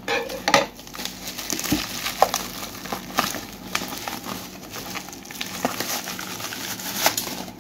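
Plastic bubble wrap crinkling and crackling as hands pull and peel it off a paperback book, with many small sharp crackles throughout.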